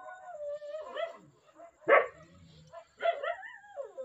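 A dog whining in long, drawn-out tones that slide in pitch, with one sharp, loud bark about two seconds in.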